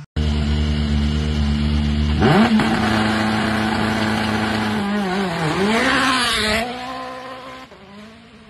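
Hyundai i20 N Rally1 car's turbocharged 1.6-litre four-cylinder engine running at a fast idle, revved up about two seconds in and held high, then dipping and rising again in pitch. A little after six and a half seconds the sound drops suddenly to a quieter, fading engine.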